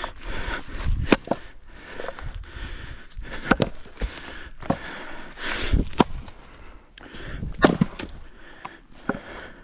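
Firewood rounds being split by hand: four sharp strikes from a swung splitting tool, about two seconds apart, with lighter knocks of wood pieces between them.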